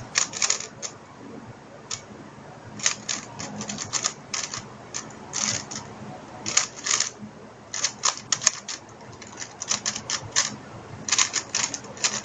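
Plastic 3x3 Rubik's cube being turned fast by hand: irregular bursts of quick clicking and rattling layer turns, with short pauses between bursts.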